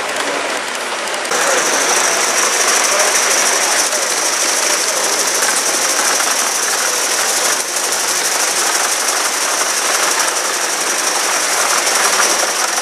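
Gauge One live steam model of a Pennsylvania Railroad steam locomotive running past, its exhaust beating rapidly. A steady high hiss sets in about a second in.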